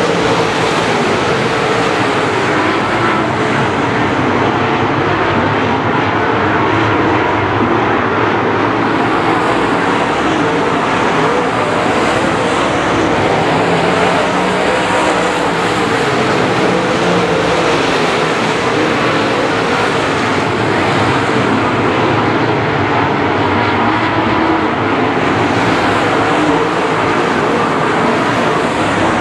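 A field of dirt late model race cars running at speed, their V8 engines overlapping in a loud, steady drone.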